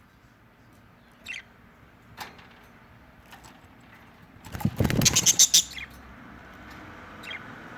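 Budgerigars chirping briefly, with a loud burst of rapid scratchy clicks and scuffling lasting about a second near the middle.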